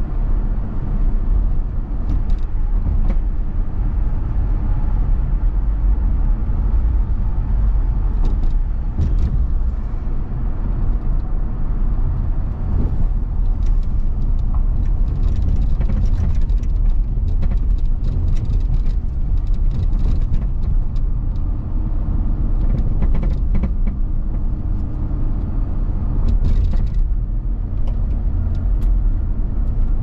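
Steady low rumble of a vehicle driving at highway speed, heard from inside the cab. Short ticks and hissy patches are scattered through it, thickest around the middle and near the end.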